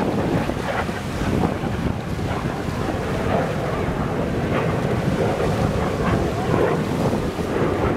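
Wind buffeting the microphone, a steady low rumble and rustle with no clear single event in it.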